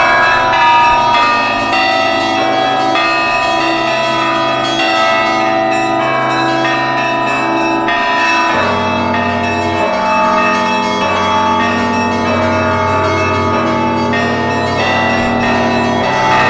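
Orthodox church bells rung in a dense, continuous peal of many bells, very loud. Under them runs a music track with a sustained low chord that changes about halfway through.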